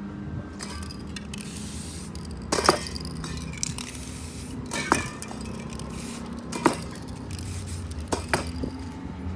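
Aerosol spray-paint can hissing in short spurts, then four sharp clinks spaced about two seconds apart.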